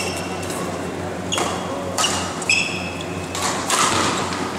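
Badminton rally: rackets striking the shuttlecock, sneakers squeaking briefly on the court floor several times, and footsteps, over a steady low hum in the hall.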